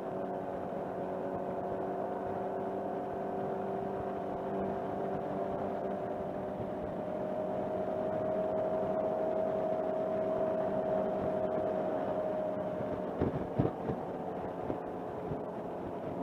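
Motorcycle engine running steadily while cruising on the road, its note rising a little around the middle and easing again, over wind and road noise. A few short knocks come near the end.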